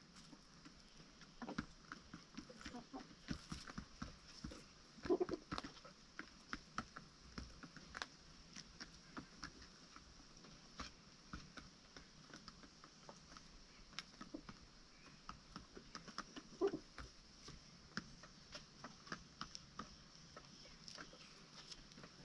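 Chickens clucking softly a few times, over frequent light taps and clicks.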